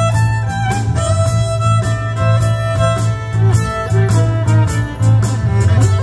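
Fiddle playing a quick dance tune, the melody moving from note to note over a steady beat and deep bass.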